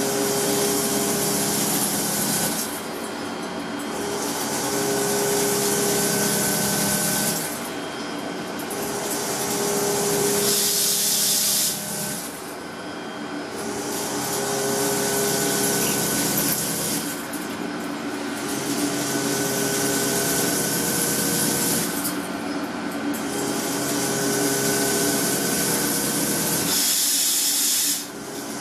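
Industrial gear-machining noise: a steady machine hum under a harsh, hissing cutting sound that starts and stops every few seconds.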